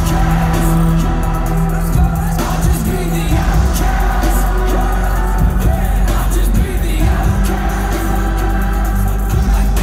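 Loud live hip-hop concert music over a venue sound system: a heavy sustained bass with singing over it.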